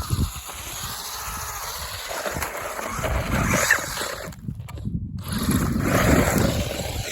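Radio-controlled car driving outdoors: an uneven, noisy rumble, with a brief near dropout about four and a half seconds in.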